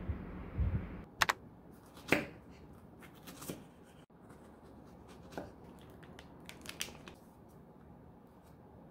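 Small kitchen knife slicing strawberries on a wooden cutting board, the blade knocking sharply on the board a few times. Later come lighter clicks and crinkles of plastic packaging being handled.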